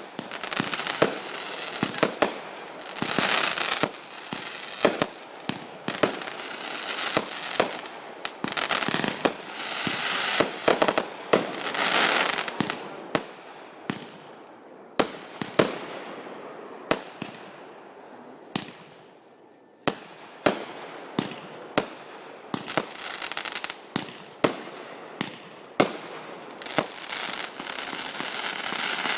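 Backyard fireworks going off: a rapid run of sharp bangs with crackling and hissing between them. The bangs thin out past the middle, then come thick again about two-thirds of the way through.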